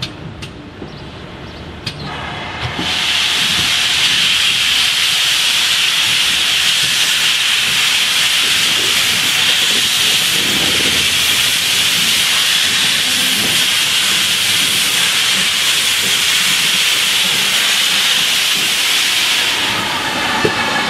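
Steam locomotive hissing loudly and steadily as escaping steam pours out around it while it moves off with its train. The hiss starts about three seconds in and stops shortly before the end.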